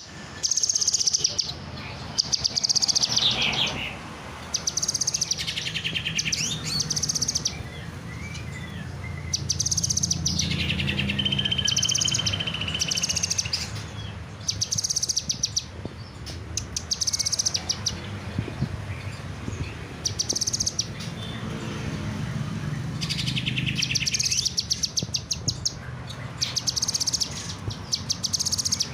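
A kinoy bird singing vigorously: repeated bursts of rapid, high chattering notes about a second long, with a few lower trills among them, over a steady low hum.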